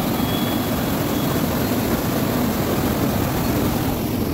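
Steady rushing noise of floodwater pouring over a weir.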